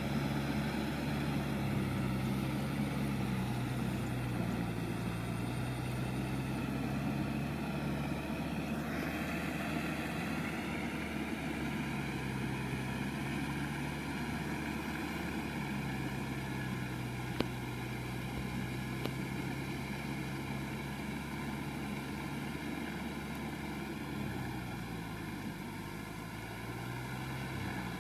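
Kubota M6040SU tractor's diesel engine running steadily under load as it drives a rear rotary tiller through a flooded rice paddy, its pitch wavering slightly and the sound slowly fading as the tractor moves away.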